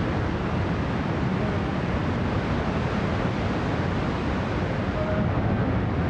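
Steady roar of heavy ocean surf, with wind buffeting the microphone.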